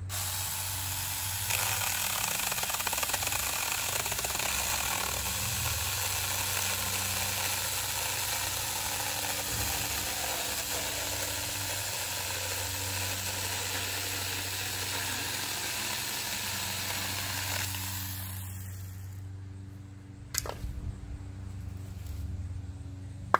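Saker Mini 4-inch 20V cordless electric chainsaw running and sawing through a 2x8 board, a steady, buzzing cut that lasts about eighteen seconds before the motor stops and winds down. A single sharp knock follows a couple of seconds later.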